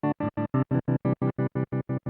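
A held chord played through the Slicer effect of a Zoom MS-70CDR+ pedal. The effect chops the chord on and off in an even rhythm of about seven pulses a second.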